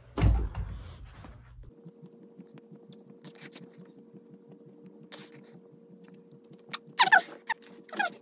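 Push-ups on a carpeted floor: a thump as the body drops into position at the start, then a faint steady hum with light small ticks, and two short, hard exhales near the end.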